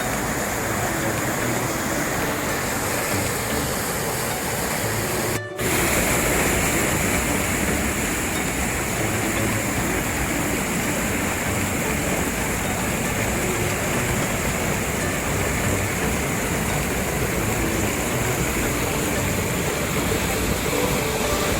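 Fast water rushing and foaming over rocks just above a waterfall, a steady unbroken rush. It cuts out for an instant about five seconds in, then resumes slightly louder.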